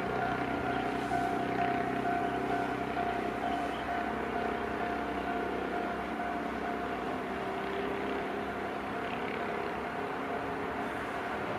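Japanese level-crossing warning bell ringing with a steady high tone, over a low rumble.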